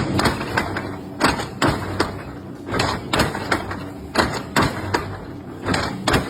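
Machinery at work: a series of heavy knocks at irregular spacing, roughly two a second, over a steady low running rumble. It starts abruptly.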